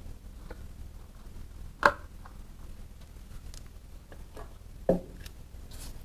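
Handling noises: two sharp knocks about three seconds apart, the first the louder, among lighter clicks and taps.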